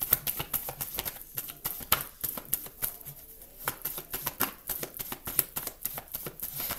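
A deck of tarot cards being shuffled by hand: an irregular run of soft clicks and flicks as the card edges slip against each other, several a second.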